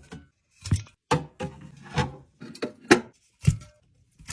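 Aluminium soda cans set down one after another on a mini fridge shelf: about six short knocks and clinks, the loudest near three seconds in.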